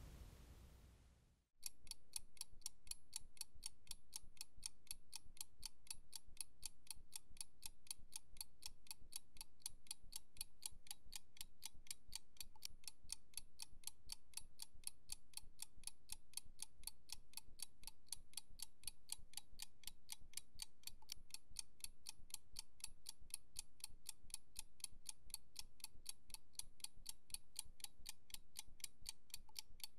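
Clock ticking steadily and evenly, starting about a second and a half in after near silence.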